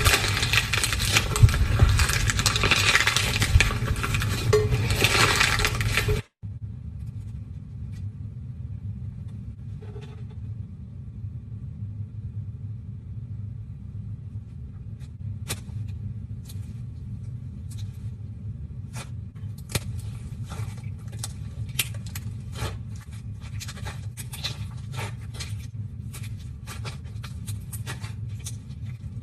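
Slime being squeezed and worked by hand: a dense crackling, scraping texture that cuts off abruptly about six seconds in. A quieter clip follows with a low steady hum under scattered sharp clicks and pops, which come more often in the second half.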